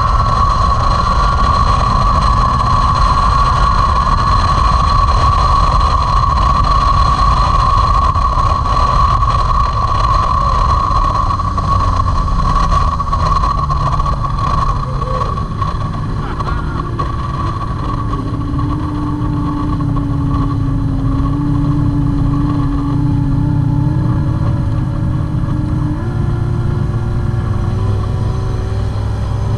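Outboard drag boat engine running at speed with a high, steady note; about halfway through it eases off and the note drops much lower, rising a step again near the end as the boat slows towards shore.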